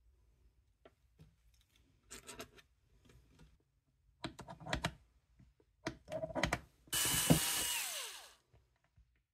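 Cordless drill running for about a second and a half as it bores a small hole in the edge of a wooden box, its whine falling as it stops. Before it, a few light clicks and knocks of tools and wood being handled.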